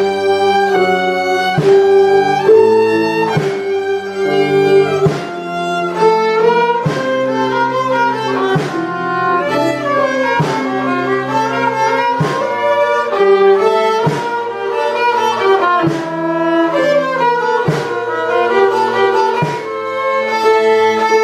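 Slow instrumental music: a sustained melody, string-like in tone, moving note by note about once a second over a held bass line.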